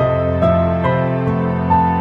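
Background music: a gentle, slow melody of held notes, each new note coming about every half second over a sustained low accompaniment.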